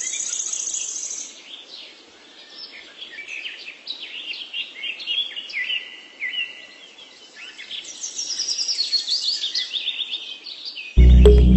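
Birds chirping and singing, with quick runs of high chirps at the start and again about eight seconds in. Music comes in loudly near the end.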